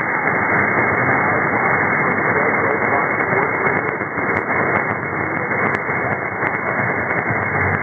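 Weak transatlantic medium-wave AM signal on 1650 kHz from KCNZ (Fox Sports Radio), received on a software-defined radio: faint speech buried in steady hiss and static, with frequent small clicks. The sound is muffled and narrow, with nothing above the receiver's narrow audio bandwidth.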